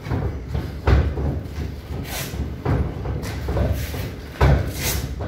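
Dull thuds of boxing gloves landing in sparring, with smaller knocks between; the two loudest blows come about a second in and near the end.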